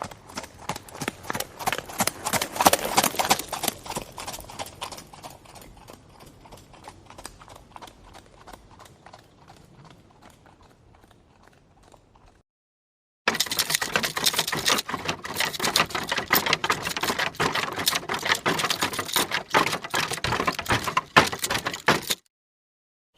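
Horse hoofbeats clip-clopping: a horse passes, loudest about three seconds in and then fading away. After a second of silence, a second, louder run of hoofbeats starts suddenly and cuts off abruptly near the end.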